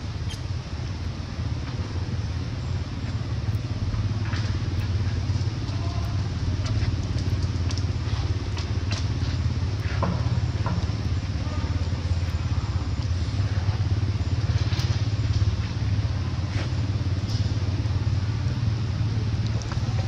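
A steady low rumble with scattered faint clicks and ticks over it.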